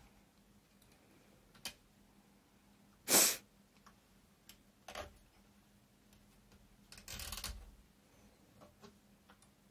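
Scattered clicks and short scraping rasps as a zipper slider is pulled back up the zipper and the knitted work is handled at the sewing machine, the loudest a brief burst about three seconds in and a longer rasp past the middle, over a faint steady hum.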